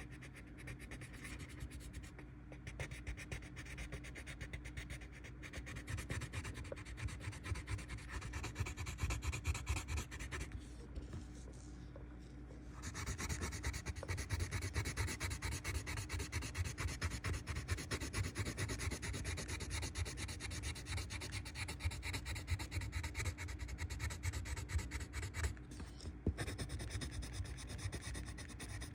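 Colored pencil shading on paper in rapid back-and-forth strokes. There is a short break of about two seconds near the middle, and then the strokes resume a little louder.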